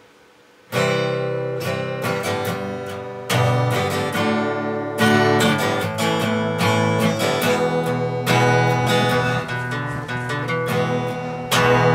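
Acoustic guitar strumming chords, starting about a second in.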